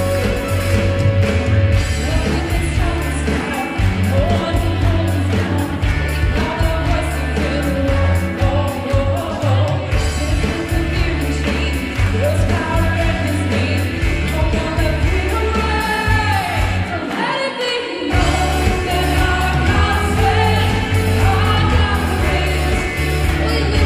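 Live worship band playing a song: a woman sings lead over electric guitar, drum kit, bass and keyboard. The bass and drums drop out for about a second near the three-quarter mark, then come back in.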